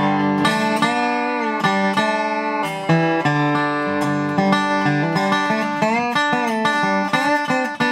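R.Q. Jones resonator guitar, just rebuilt with a new cone and spider, played lap-style: fingerpicked notes and chords ringing out, with several notes sliding up and down in pitch.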